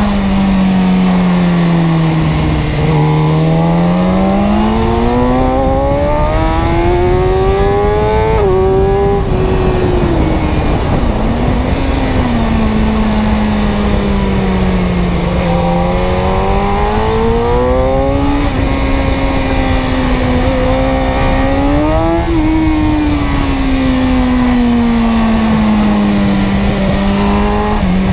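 Car engine running under changing load, its pitch rising slowly and falling again several times over a steady rush of road noise.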